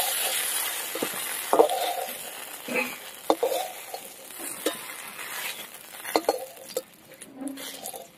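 Hot mustard oil sizzling in a metal kadai as fried aubergine pieces are lifted out, the sizzle fading away. A metal spatula scrapes and knocks against the pan several times.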